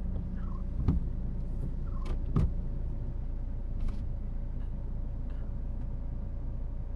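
Car engine idling with a steady low hum, and a few knocks about one second and two and a half seconds in.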